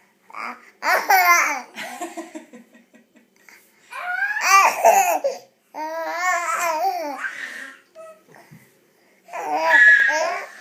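Baby laughing in about four short bursts, with babbling between.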